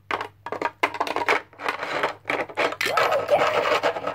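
Small plastic toy pieces clicking and knocking against a plastic dollhouse, then a child's wordless, wavering singing from about three seconds in.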